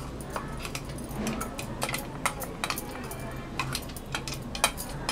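Irregular light clinks and taps, a few a second, as hands handle small brinjals on a glass plate, with glass bangles on the wrist jingling.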